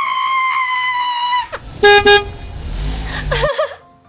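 A long steady high tone, then two short car-horn honks and a car engine rumble that cuts off, played as comedy sound effects.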